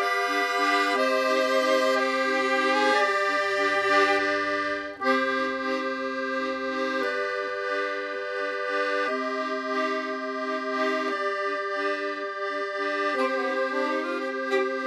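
Tango music led by a bandoneon, holding sustained reed chords that change about every two seconds, with a brief break about five seconds in.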